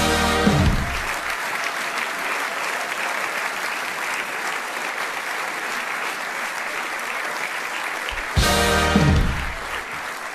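Audience applauding in a hall. A band plays a short loud chord at the start and again about eight seconds in.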